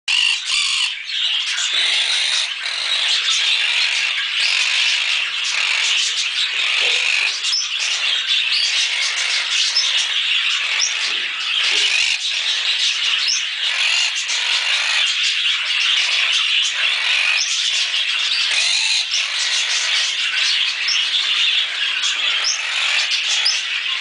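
A pair of Quaker (monk) parakeets calling nonstop: a dense, unbroken run of high-pitched squawks and chatter.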